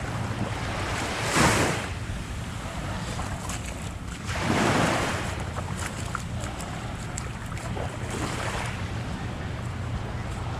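Ocean waves breaking and washing up on a sandy beach, three swells of surf a few seconds apart, over a steady low rumble of wind on the microphone.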